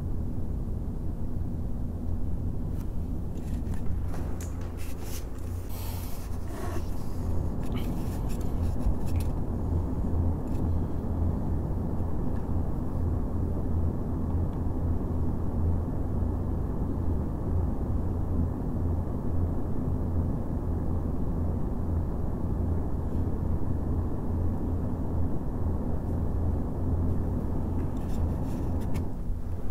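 Four Noctua NF-A14 PWM 140 mm fans running together on USB power, a steady rush of air over a low hum. Rustling and clicks a few seconds in as the fans are handled and repositioned.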